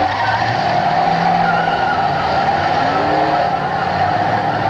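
Engines of several demolition derby cars running and revving together, the pitch rising and falling as they drive and push against each other on the dirt.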